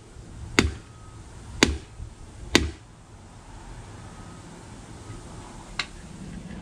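Knife point stabbed into the thin aluminium top of a beer can to punch ventilation holes for a can stove: three sharp clicks about a second apart, then a fainter one near the end.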